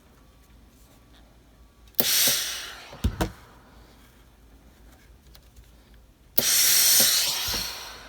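Steam iron letting off two bursts of steam, each a sudden hiss that fades away: a short one about two seconds in and a longer one near the end, with two quick knocks just after the first.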